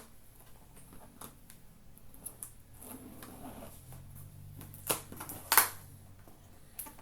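Cardboard shipping box being handled and opened by hand from the bottom: scattered knocks, taps and scrapes, the loudest two close together about five seconds in.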